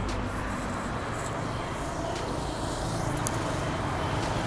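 Steady outdoor street background with the hum of road traffic.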